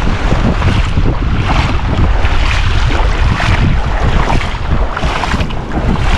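Wind buffeting the microphone over the rush of waves and surf, a loud, gusting noise that rises and falls.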